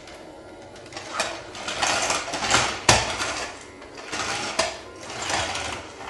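Dyson-style toy stick vacuum running with a mechanical whirr, rising and falling in a few swells, with a couple of sharp clicks.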